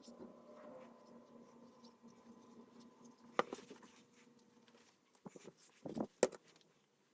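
Cardstock pieces being handled and stacked: faint rustling and scraping, with a sharp tap about three and a half seconds in and a quick run of taps near six seconds, over a low steady hum.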